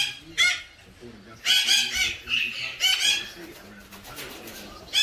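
Galah cockatoo giving a string of short, harsh screeching calls, several in quick succession then a quieter spell in the last second or so; a male calling to stimulate a female for breeding.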